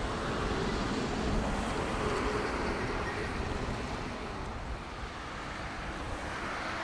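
Steady rushing noise of a road vehicle going by, swelling over the first couple of seconds and easing off before the rush builds again near the end.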